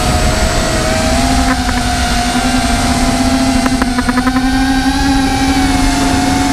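Motor and propeller of a remote-controlled aircraft, heard from its own onboard camera: a steady whine that steps up in pitch about a second in and wavers a little as it flies, over wind rushing past the microphone. A short run of rapid rattling clicks comes around four seconds in.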